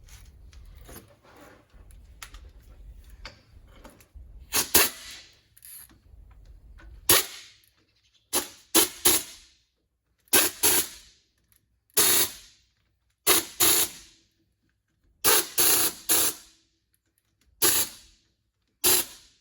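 A pneumatic air tool fired in short, loud bursts, often two or three close together, recurring about every second and a half.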